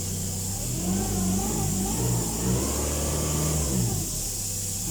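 Toyota 1DZ-II four-cylinder diesel engine of a forklift running and revved once: the pitch climbs about a second in, holds, and drops back to idle near the end. The engine now starts quickly, its hard starting cured by a new glow plug.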